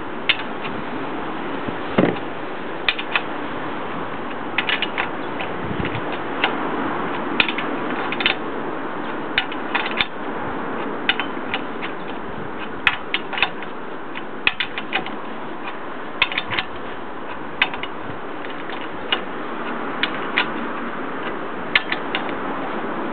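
Hand tools working on the steering and suspension parts of a Jeep Wrangler's Dana 30 front axle: many sharp metal clicks and clinks at an irregular pace over a steady hiss.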